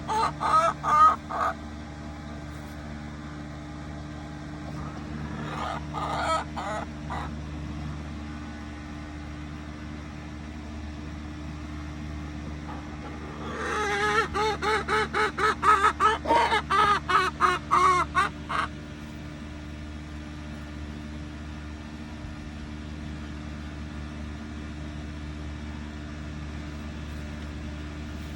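Rhode Island Red hen calling in runs of loud, repeated clucking notes: a short run at the start, another around six seconds in, and a long rhythmic run of about two to three notes a second from about 13 to 19 seconds in. A steady low hum runs underneath.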